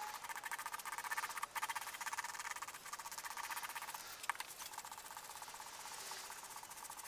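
Wooden claw-hammer handle being sanded by hand in quick back-and-forth strokes, a steady rapid rasping.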